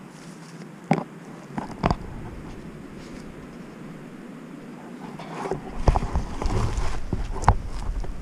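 Handling noise and wind rumble on an action camera's microphone, with sharp knocks about one and two seconds in. The rumble grows louder over the last few seconds, with more knocks, as the camera is moved about.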